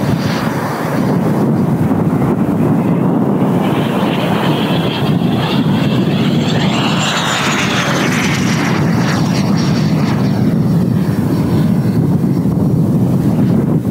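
A 90 mm WeMoTec Midi Evo electric ducted fan on a model jet, running at speed in a pass: a high whine that drops in pitch after the middle as the jet goes by, over a steady low rumble.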